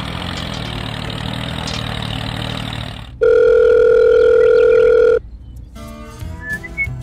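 A tractor engine running for about three seconds, then a loud steady telephone ringing tone held for about two seconds, then music with a whistled tune begins near the end.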